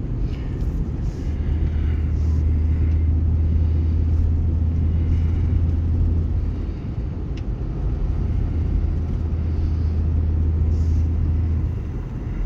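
Steady low rumble of a car on the move, heard from inside: engine and road noise with a deep drone, easing slightly about two-thirds of the way through and again near the end.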